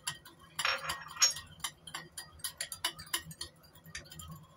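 Metal spoon stirring a liquid sauce in a small ceramic bowl, clinking against the bowl in quick, regular ticks, about three or four a second, with a louder stretch about a second in.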